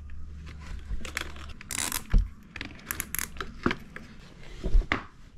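A weight being strapped tight into a plastic milk-crate cray pot: scraping and crinkling handling noise, a rasping pull about two seconds in, and two sharp knocks, one just after the pull and one near the end.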